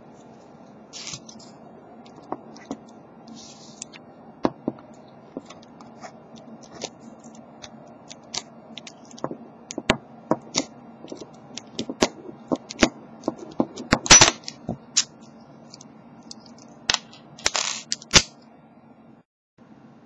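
Metal pick clicking and scraping in a Master M530 padlock's pin tumbler cylinder as it is raked open: irregular sharp clicks, sparse at first, then quicker and louder, with a loud cluster about two-thirds of the way in and short scrapes near the end.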